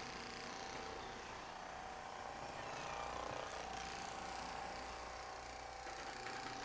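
Motorized chiropractic treatment table with its lower section moving, its motor giving a steady hum.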